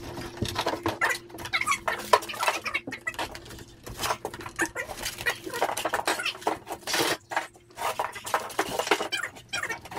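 An animal's voice: short, broken whines repeated again and again.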